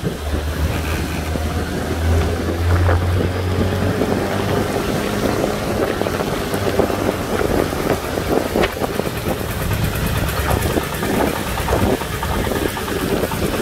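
Vehicle engine running steadily while moving along a wet road, with tyre hiss and wind noise on the microphone. The low engine drone is strongest for the first few seconds, then eases back under the road and wind noise.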